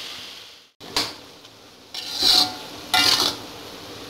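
Metal spatula scraping and tossing water spinach in a metal wok: a sizzle that fades out near the start, a single clink at about one second, then three scraping strokes about a second apart.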